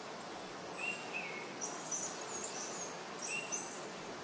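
A small bird chirping in short phrases several times, high and thin, over a steady low hiss.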